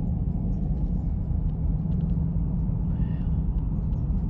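Car driving: a steady low road rumble.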